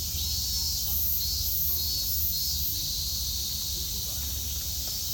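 Cicadas singing in a steady, high chorus that pulses about twice a second, over a low rumble.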